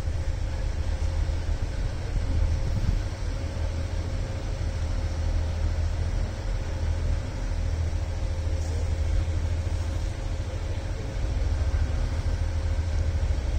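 Engine idling steadily: a low rumble with a faint constant hum.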